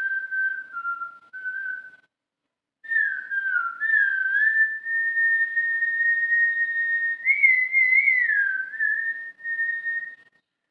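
A man whistling through pursed lips: slow, long-held notes with smooth slides between them. One phrase ends about two seconds in, and after a short pause a longer phrase begins, rising briefly to a higher note near the middle before settling, and it stops shortly before the end.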